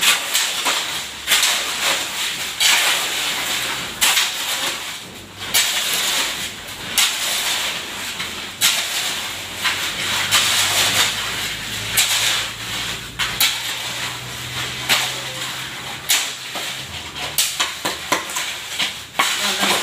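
Steel shovels scraping and scooping wet concrete mix on a concrete floor, one gritty scrape every second and a half or so. A faint low hum runs for several seconds in the middle.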